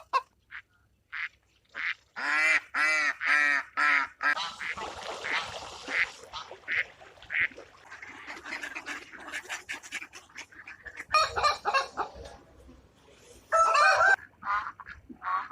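Waterfowl calling: a run of four loud honks about two seconds in, then a stretch of noise and scattered calls, with another burst of loud calls near the end.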